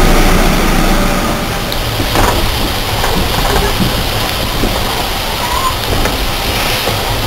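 Train running along the track: a steady low rumble and rushing noise, with a few faint clicks.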